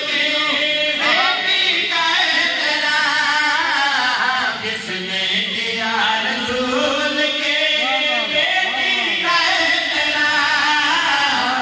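Male voices chanting a qaseeda, a Shia devotional poem in Urdu, sung continuously with long, bending held notes.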